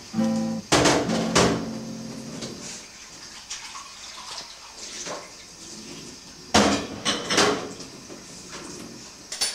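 Dishes being washed in a kitchen sink under a running tap: crockery clinks and clatters a couple of times near the start and again in a quick run about two-thirds in, with water running between.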